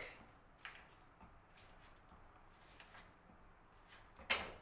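Faint scattered clicks of ingredients and kitchen things being handled on a counter, with one sharp knock a little after four seconds in.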